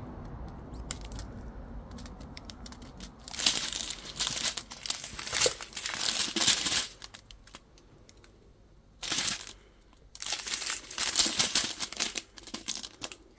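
Plastic strips of diamond-painting drill packets crinkling as they are handled and turned over, coming in three bouts of crackling starting a few seconds in.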